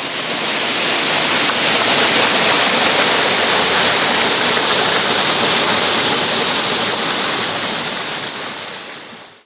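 Mountain stream rushing and splashing through a small cascade between boulders, a steady loud rush of water that fades in at the start and fades out at the end.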